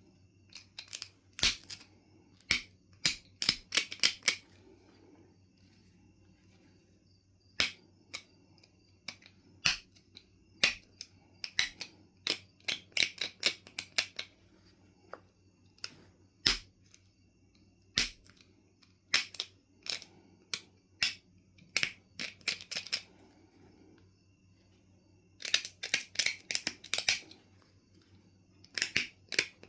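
Flintknapping on Knife River Flint: clusters of sharp stone clicks and snaps as flakes are worked off the piece, with short pauses between the runs.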